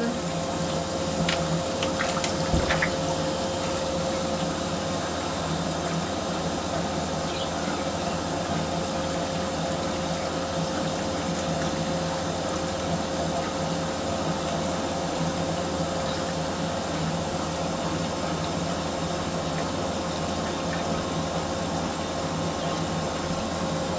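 Water running steadily, with a constant motor hum under it.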